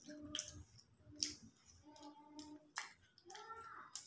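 Close-miked eating by hand: sharp wet clicks and smacks of a mouth chewing curry and rice, about one a second, with a few short low hums between them.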